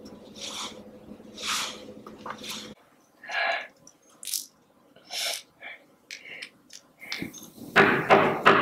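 A frightened young woman breathing hard and unevenly, in short gasps and sobbing breaths about once a second. A louder burst of sound comes near the end.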